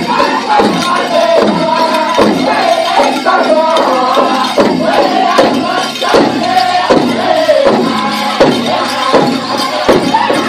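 Powwow drum group singing together over a steady, even beat on a big drum, with jingling in the background.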